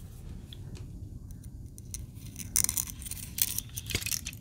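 Light clicks and rattles of a 3D-printed plastic pulley joint being handled and turned over in the hands, starting about halfway through.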